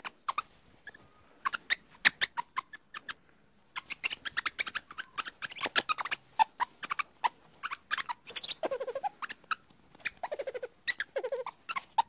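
Ring-tailed lemurs chirping: rapid runs of sharp, clicking chirps in irregular bursts, with a few short pitched calls in the second half.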